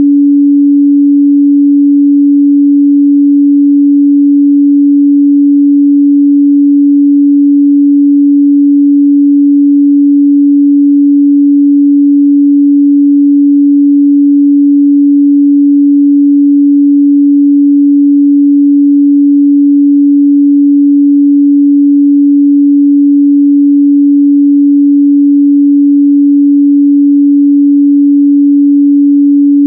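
A steady, loud 285 Hz sine-wave test tone, one pure pitch held without change.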